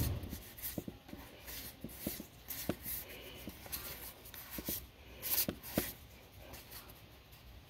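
Magic: The Gathering trading cards being flipped through by hand, one slid behind another: quiet, irregular clicks and light scrapes of card stock on card stock.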